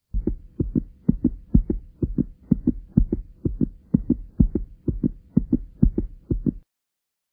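Heartbeat sound effect: fast, even lub-dub double beats, about two a second, that start abruptly and cut off shortly before the end.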